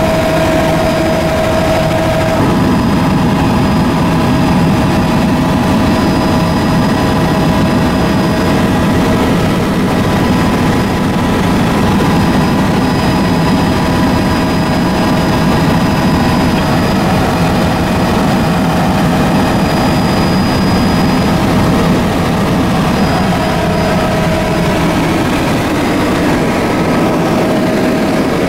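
Aircraft engine running steadily in flight: a constant low rumble with a steady whine over it.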